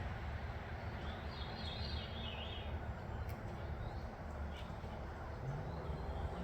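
A bird calling a short, quick series of high notes about a second in, over steady outdoor background noise.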